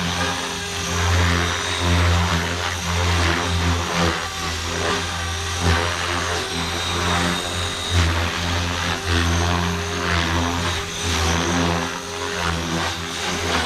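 Blade Fusion 360 electric RC helicopter hovering and manoeuvring under power on a 3S LiPo in Stunt 2 (idle-up) mode, its main and tail rotors whirring at a steady head speed. The level swells and dips every second or so as it moves.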